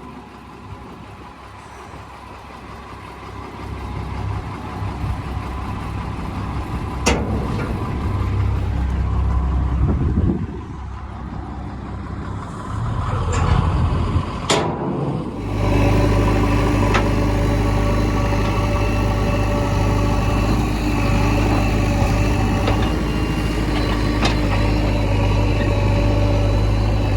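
A heavy diesel engine of construction machinery running, rising and falling with a few sharp knocks. About halfway through it becomes a louder, steady engine sound.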